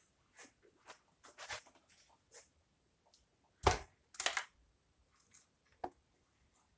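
Handling noises on a wooden workbench: scattered light knocks and rustles, then a heavy thud a bit past halfway as an object is set down on the bench. A short clatter follows, and one sharp click comes near the end.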